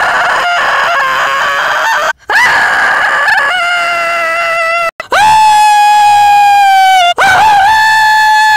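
Long, drawn-out cartoon-character screams and yells, several held cries spliced one after another with abrupt cuts about two, five and seven seconds in. The later cries hold one steady high pitch.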